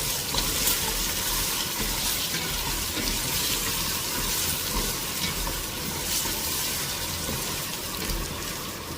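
Chopped beef sizzling as it fries and browns in a saucepan, its own juices cooked off: a steady hiss with small scattered crackles.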